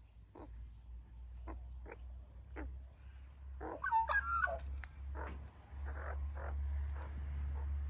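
Australian magpies calling: a run of short calls about every half-second, with a brief burst of warbling about four seconds in.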